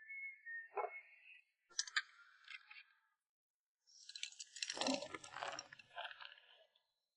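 A person eating: a few small clicks, then a couple of seconds of chewing and slurping with little clicks mixed in. A wavering whistle-like tone fades out in the first second.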